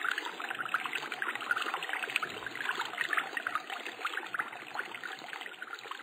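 Small stream babbling and trickling over rocks, slowly fading out.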